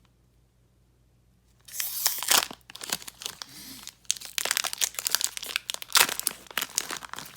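A foil trading-card pack wrapper being torn open and crinkled by hand, in irregular crackles and sharp snaps that start after a quiet second and a half or so.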